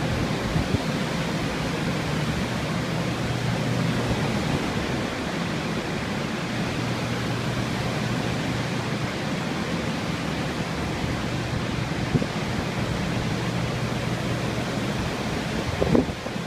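Water-damage drying equipment, blower fans (air movers), running with a steady rushing noise and a low motor hum. A brief thump near the end.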